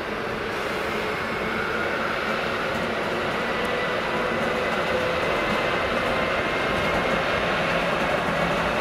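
Siemens Vectron electric locomotive pulling passenger coaches slowly through the station: a steady train rumble that swells gently, with a faint high whine that rises slightly in pitch.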